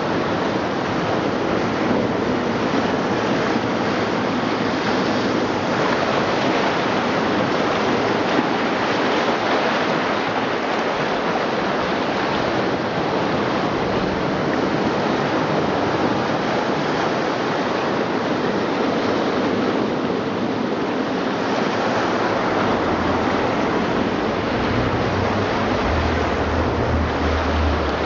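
Recorded ocean surf played through speakers built into a sculpture: a steady wash of waves, with a low rumble joining in near the end.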